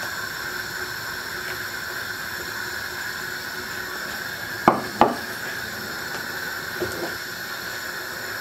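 Steady hiss from a pot of soup simmering on a gas stove. Two sharp knocks come a little after the middle, and a fainter one near the end.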